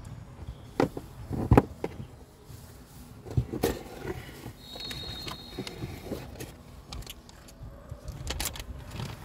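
Rigid cardboard box being handled and opened by hand, with a few sharp knocks of box and lid against each other and soft scraping of cardboard, then a plastic bag crinkling near the end.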